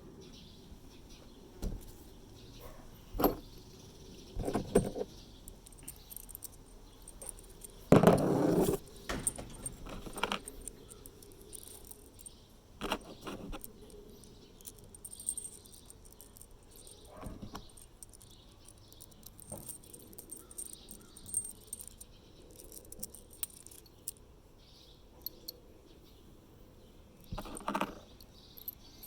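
Small metal parts clinking and rattling as they are handled, with scattered knocks and one louder clatter about eight seconds in.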